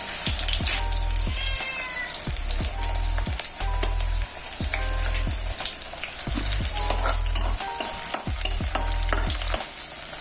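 Food sizzling as it fries in a hot pan, with a spatula or spoon scraping and tapping against the pan as it is stirred.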